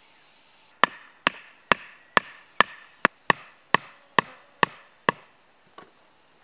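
A wooden stake being driven into the ground with about eleven sharp knocks, roughly two a second, then one faint tap near the end.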